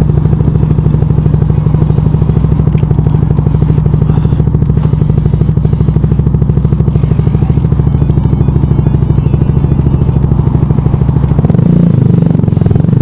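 Yamaha YZF R125's single-cylinder four-stroke engine running at a steady cruising speed, a fast, even pulse of firing strokes.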